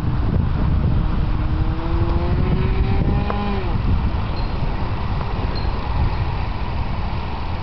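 Engine of a radio-controlled Hangar 9 P-51 Mustang model plane in flight, a faint drone whose pitch rises slowly for a couple of seconds and then drops away about three and a half seconds in, over a steady low rumble.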